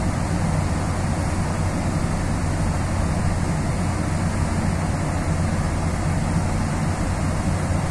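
Car ferry under way: the ship's engines make a steady low hum under an even rushing noise of wind and water.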